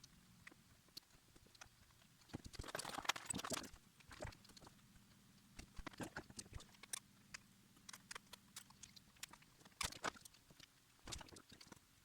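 Faint scattered clicks and taps of small printer parts and tools being handled during disassembly, busiest about three seconds in and again near the end, over a faint steady low hum.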